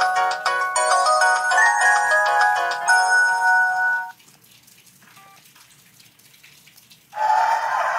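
Samsung ringtone melody of quick, bright notes played through a ZTE Z222 phone's loudspeaker, stopping about four seconds in. After a quiet gap of about three seconds, the next ringtone starts near the end with a noisy, rushing sound over a held tone.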